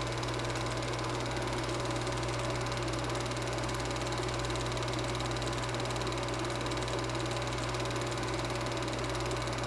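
Super 8 film projector running: a steady motor hum and mechanical whir that holds even throughout.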